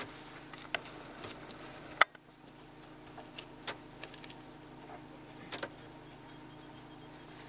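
A steady low hum with scattered sharp clicks and ticks; the loudest click comes about two seconds in, with a few fainter ones later.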